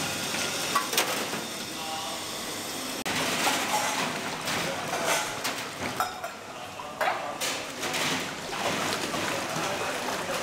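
Taps running and water splashing in stainless steel sinks as steel plates and bowls are rinsed and washed, with frequent metallic clinks of the dishes knocking together.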